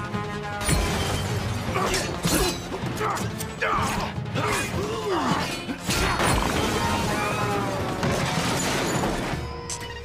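Action-film sound mix of a heavy armoured truck chase: repeated metal clanks, crashes and screeching scrapes, with some glass shattering, over music.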